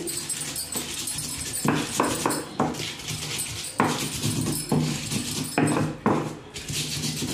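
Rhythmic back-and-forth scraping of a hand grinding stone crushing whole dried red chillies and garlic, wetted with a little water, on a flat grinding slab, several strokes a second.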